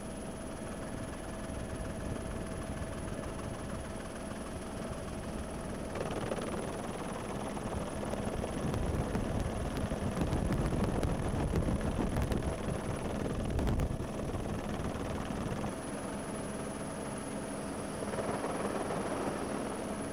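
Helicopter running steadily, a noisy drone with a constant whine through it, swelling louder for several seconds around the middle.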